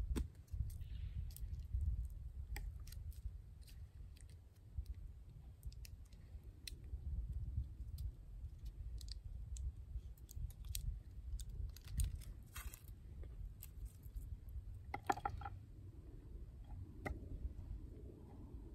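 Knife cutting and scraping at a fire-starter stick on a wooden log: scattered sharp clicks and short scrapes, with a couple of longer scrapes about twelve and fifteen seconds in, over a steady low rumble.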